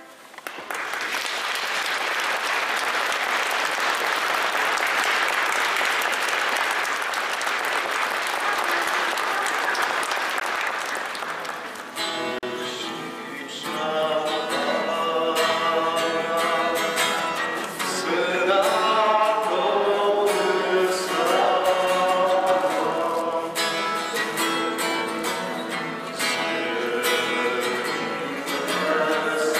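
An audience applauding for about twelve seconds, then guitar playing begins and a group of voices starts singing with it.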